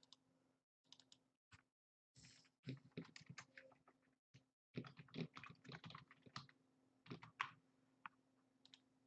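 Faint, irregular clicking of a computer keyboard and mouse, thickest between about three and seven and a half seconds in, over a faint steady hum.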